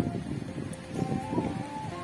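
Background music: held synth-like notes over a pulsing low beat, the melody stepping up about a second in.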